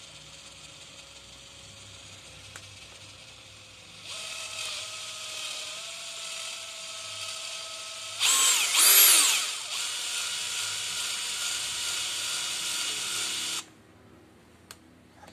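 Bosch GSR 18V-60 FC brushless drill-driver running free with its chuck spinning, a steady motor whine. It steps up to a higher speed about four seconds in, and has a louder stretch around the middle where the pitch sweeps up and down. It then stops abruptly near the end.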